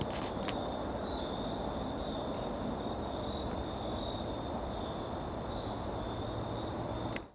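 Night insects trilling steadily in the woods over a constant background hiss, with a few faint clicks at the start; the sound cuts off suddenly at the very end.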